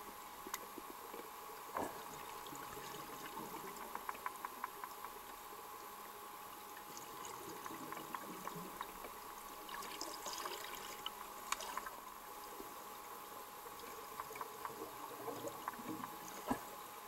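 Faint underwater bubbling from a Halcyon PVR-BASC semi-closed rebreather venting gas, with small clicks and trickling that come and go over a steady hiss.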